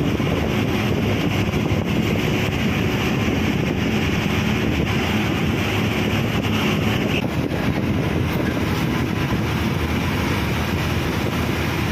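Steady engine hum with road and wind rush from a moving bus, heard through its open side window. The hiss eases a little about seven seconds in.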